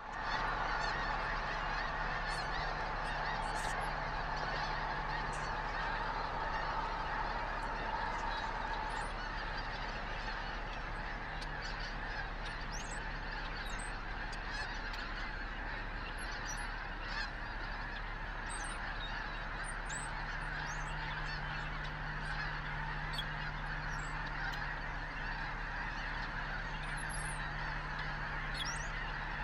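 A large flock of wintering geese honking all at once, a dense, unbroken din of many overlapping calls that holds steady throughout.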